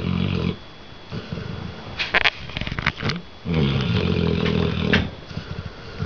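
Red-nose pit bull / American bulldog mix snoring loudly in deep sleep. One snore trails off at the start, short crackles follow about two seconds in, and a long, loud snore runs from about three and a half seconds in.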